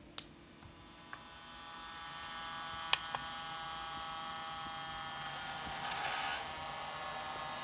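A sharp click as the battery lead is plugged in. Then a Turnigy hobby charger hums and whines steadily as it starts charging a 6-cell LiPo pack, the sound growing louder over a couple of seconds. Two button clicks come about three seconds in.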